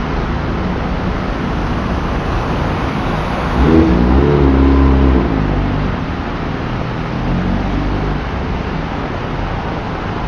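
Steady hiss of tyres and spray on a flooded, rain-soaked road, with a motor vehicle's engine passing close and loud for about a second and a half, a little under four seconds in.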